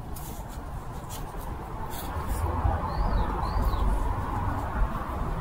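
Loose potting soil rustling and scraping as it is worked by hand in a plastic cup, with a couple of faint clicks about two seconds in and two short high chirps about three seconds in.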